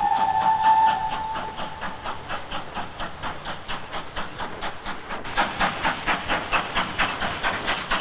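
Steam locomotive running: its whistle holds a steady note and fades out about two seconds in, over a fast, even chuffing of the exhaust, about five beats a second, which grows louder in the second half.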